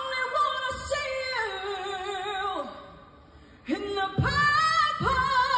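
A woman singing a live pop ballad with band accompaniment, holding long notes with vibrato, with a short break about three seconds in before she comes back in.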